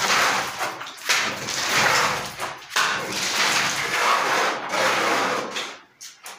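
Trowel scraping wet cement mortar on a handboard in repeated rough strokes about a second long, as roughcast is cast onto a concrete ceiling.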